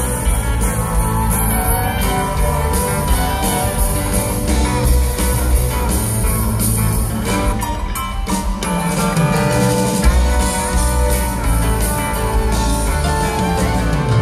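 Live country band playing loudly, with guitars prominent over bass and drums.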